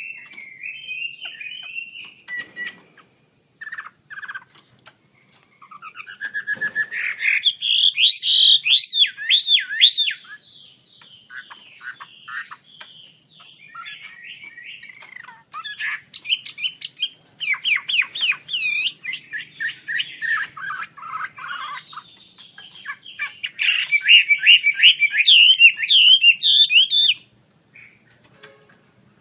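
Chinese hwamei (melodious laughingthrush) in full song: long, varied phrases of rapid whistled notes sliding up and down. There are three loud bouts, with quieter stretches between them and a short pause near the end.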